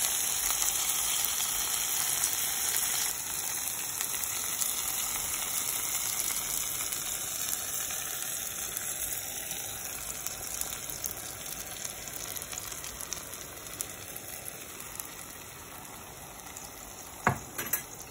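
Onion, green bell pepper and tomato sizzling in melted margarine in a frying pan. The sizzle grows gradually quieter as the beaten egg goes in over the vegetables. One sharp knock comes near the end.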